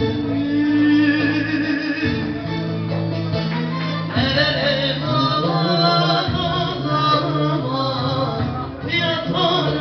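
Live Kurdish folk music on a plucked lute, with steady low notes changing in steps every second or two under a wavering, ornamented melody line.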